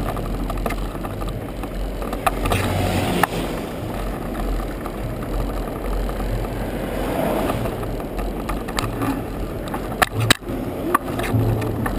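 Bicycle rolling over rough pavement, heard from a camera riding on the bike: a steady rumble of tyres on the surface, with a few sharp knocks and rattles about ten seconds in as it goes over bumps.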